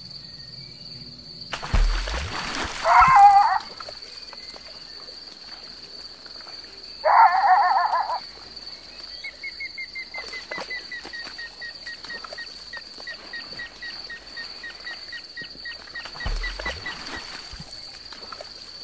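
Bull elk bugling, a rutting call, twice: a rough call about two seconds in that rises into a high whistle, then a shorter warbling whistle about seven seconds in. A steady high insect trill runs underneath, with a run of faint quick chirps and a short rush of noise near the end.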